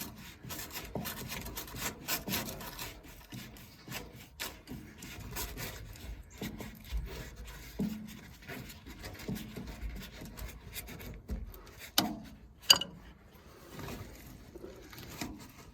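A metal hose clamp being worked loose on an old rubber water hose, making irregular rubbing and scraping with small knocks and a couple of sharp clicks near the end. The clamp is stuck fast in the rubber.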